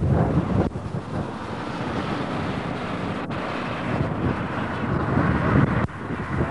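Wind buffeting an outdoor camcorder microphone with a low rumble, over the noise of a vehicle passing on the road.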